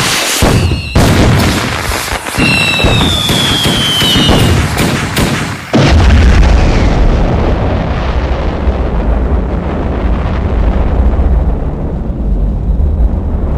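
Fireworks: a rapid run of sharp bangs and crackles with whistles sliding down in pitch, then about six seconds in a heavy boom followed by a long low rumble.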